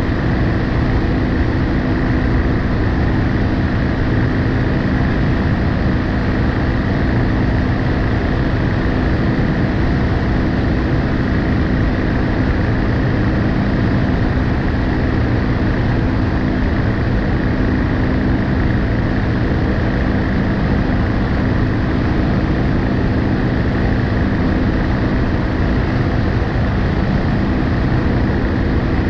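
BMW R1250GS Adventure's boxer-twin engine running at a steady cruise, its pitch holding constant, under a steady rush of wind and road noise on a front-mounted action camera.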